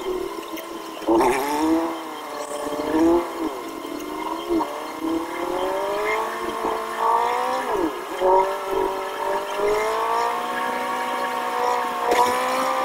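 Off-road vehicle's engine revving up and down repeatedly, the pitch climbing and dropping several times, with one sharp drop and recovery past the middle.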